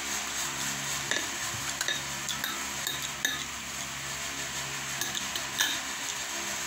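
Metal spoon clinking against a dish of dipping sauce: several light clinks in the first half and a louder one near the end, over a steady background hum.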